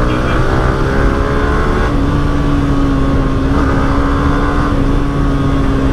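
Yamaha R15 V3 motorcycle's single-cylinder engine pulling in gear, its note rising slowly, then settling to a steady note about two seconds in, heard from the rider's seat with wind rushing over the microphone at speed.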